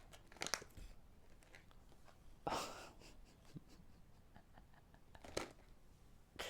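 Quiet room with a few faint clicks and rustles, and one short breathy burst about two and a half seconds in.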